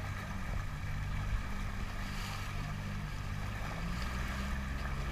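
Small motorboat's engine running steadily under way, with wind and water rushing past.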